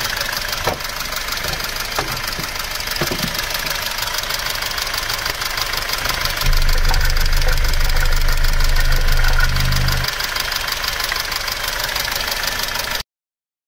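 Mercedes M271.860 four-cylinder engine idling with its accessory belt off, with a fast, even ticking knock from the valvetrain that the owner takes for worn rocker arms. A louder low drone joins from about halfway to about ten seconds in, and the sound cuts off suddenly near the end.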